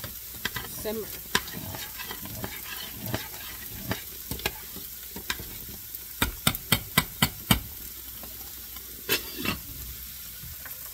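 Diced beef steak and garlic sizzling as they brown in a skillet, with a utensil stirring and knocking against the pan: a quick run of about six knocks past the middle, then two more.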